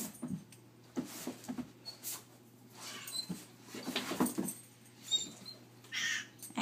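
Doberman sniffing and snuffling in short irregular bursts, with a few faint high squeaks and a short breathy burst about six seconds in.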